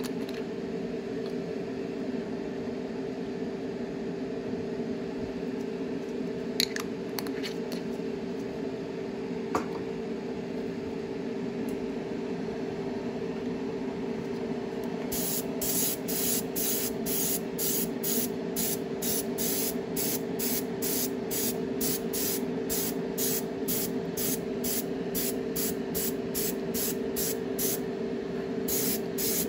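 Iwata Neo dual-action airbrush spraying in short, rapid hissing spurts, about two a second, starting about halfway in, as the trigger is pressed and released over and over. A steady low hum runs underneath, with a couple of small clicks before the spraying starts.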